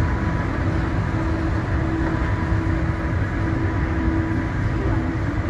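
Interior noise of a Siemens A1 metro train car: a steady low rumble with a level hum that cuts in and out every second or so.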